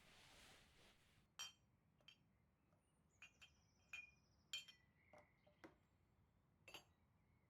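Faint clinks and taps of dishes, cutlery and glassware as breakfast is served, about nine small strikes scattered through the stretch, some with a brief ringing tone.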